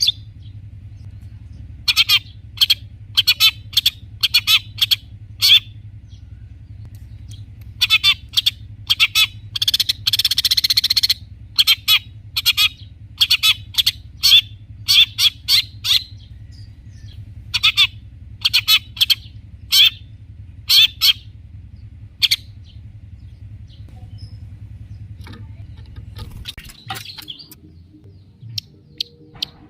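Long-tailed shrike (cendet) singing in bouts of short, sharp, harsh calls, with one longer rasping chatter about ten seconds in. A steady low hum lies underneath and drops away near the end.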